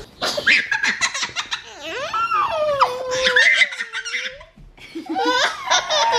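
A toddler laughing hard while being tickled: quick high giggles, a long drawn-out squeal that glides up and down in the middle, then more giggles near the end.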